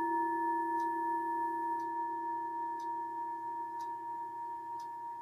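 Metal singing bowl ringing after a mallet strike: a steady low hum with two higher overtones, slowly fading.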